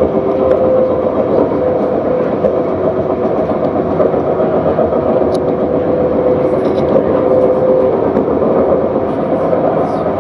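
A CAF Urbos 3 light rail tram running along the track, heard from the driver's cab: a steady rolling rumble with a steady whine over it.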